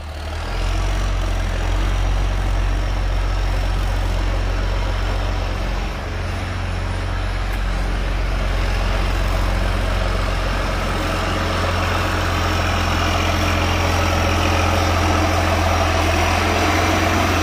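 John Deere 4440 tractor's turbocharged six-cylinder diesel running as the tractor is driven toward the shop: a steady, low engine hum that grows a little louder near the end.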